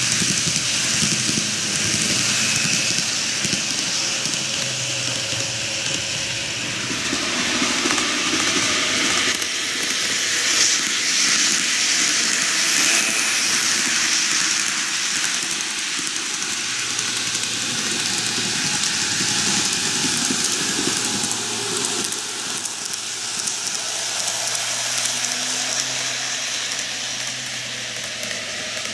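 N-gauge model electric train running on TOMIX canted track: a steady rolling hiss of metal wheels on the rails with a low motor hum. It is a little louder as the train passes close by midway and slightly quieter near the end.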